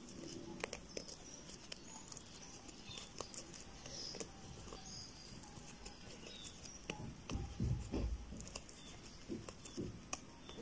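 Faint rustling and small clicks of a crochet hook being worked through thick t-shirt yarn, with a few soft thumps about seven to eight seconds in.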